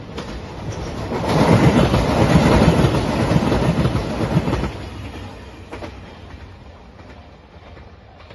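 JR Shikoku 2700-series diesel express train passing close by, its wheels clattering over the rails. The rumble builds about a second in, is loudest for about three seconds, then fades as the train moves off.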